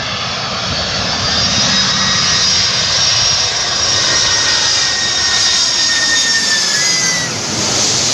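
Twin-engine jet airliner coming in low overhead on approach. A loud, steady rush of turbofan engine noise builds as it nears, with high whining tones over it that dip slightly in pitch and fade near the end as it passes over.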